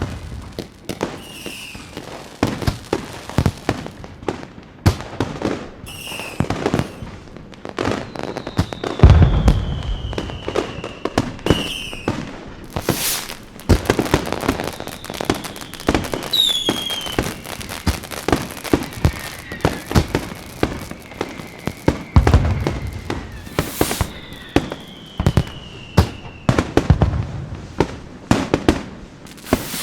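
Fireworks display: a dense run of sharp crackling bangs and pops, broken by several deep booms and a few whistling rockets whose pitch falls as they fly.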